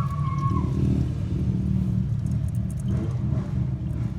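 The 6.2-litre V8 of a 2009 Cadillac Escalade idling steadily with its valvetrain exposed, while oiling to the rocker arms is checked; the owner suspects some rockers are starved of oil and points to the oil pickup tube.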